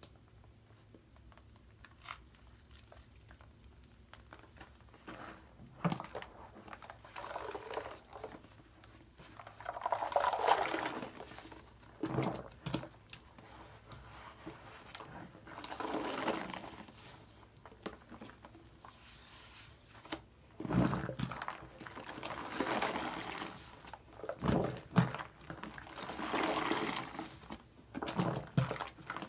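A large yellow bath sponge coated in thick white foam (a foam soap that is really shaving cream) being squeezed and kneaded by hand in a basin of water: wet squelching and sloshing. The sound comes in irregular bursts with quieter gaps, starting a few seconds in and growing busier near the end.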